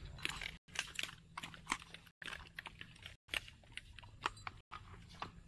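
Irregular small clicks, taps and rattles of tactical gear and a rifle being handled up close. The sound cuts out briefly about four times.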